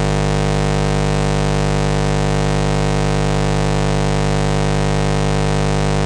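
Loud, steady electrical buzz with many overtones, never changing in pitch or level: hum on the nest-box webcam's audio feed.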